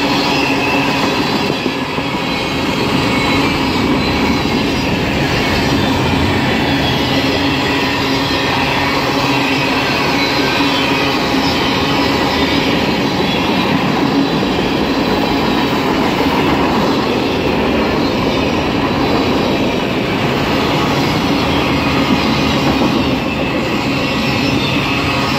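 Tank cars and autorack cars of a freight train rolling past close by: the steady rumble and clatter of steel wheels on the rails.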